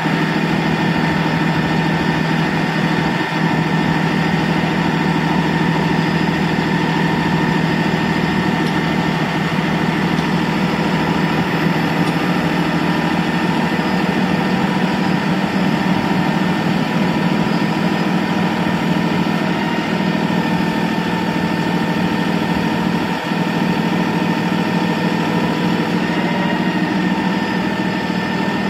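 Ford F650 bucket truck's engine running steadily while it drives the hydraulics of the Altec boom, swinging and lowering the bucket; a steady sound with a held whine over the engine.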